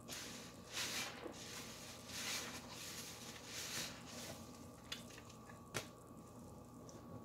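Soaked sponges squeezed and squished in soapy water and thick suds: a run of wet squelches about a second apart, then softer, with two short sharp clicks about five and six seconds in.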